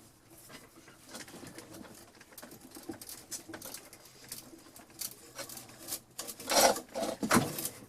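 Vintage hand-cranked drill with an auger bit boring into wood: a run of small creaks and crackles as the bit cuts, growing louder with a few heavier crunching strokes near the end as the bit bites in.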